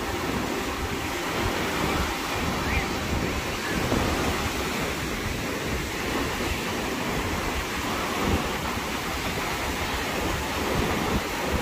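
Surf breaking and washing up a sandy beach, a steady rush of sea noise, with wind gusting on the microphone.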